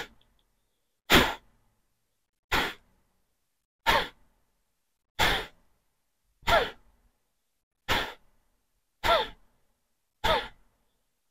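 A man's forceful exhalations: eight short, sharp puffs of breath at an even pace, a little over a second apart, with the normal inhales between them unheard. This is a forced-exhale breathing exercise that pushes the air out by pulling the belly in, the yoga practice known as kapalabhati.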